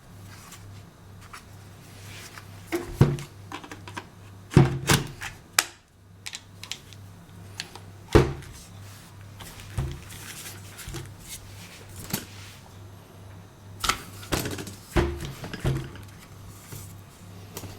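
Handling noise: a string of irregular knocks, clicks and thunks from hard objects being handled and set down, heaviest in clusters about three seconds in, around five seconds, at eight seconds and around fifteen seconds. A steady low hum runs underneath.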